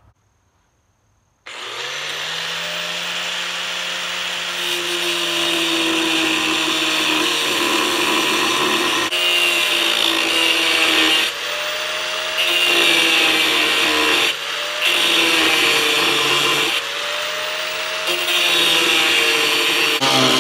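Corded DeWalt angle grinder starting about a second and a half in and spinning up, then cutting into a painted steel bar. The motor pitch sags under load and rises again each time the disc is eased off the steel, several times over.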